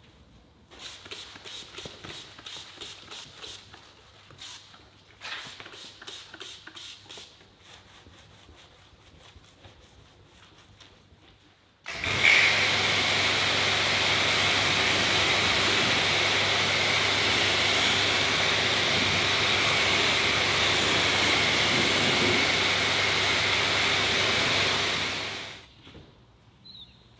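Quick rubbing strokes of a hand wiping over wet car paint. Then a pressure washer starts up abruptly: its motor hums steadily under the hiss of the spray rinsing the bodywork, and it cuts off near the end.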